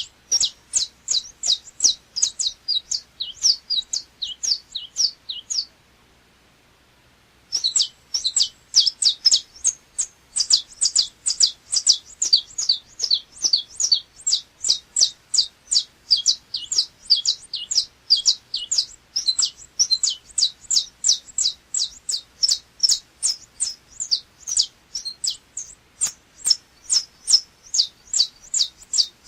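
A saffron finch (canário chapinha) singing a long run of loud, sharp chirps, each a quick downward sweep, about five a second. There is one pause of nearly two seconds about six seconds in.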